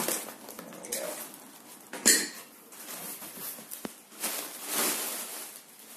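Cardboard box flaps being pushed open and plastic air-pillow packing being rustled and handled, with a sharp crackle about two seconds in and a stretch of rustling near the end.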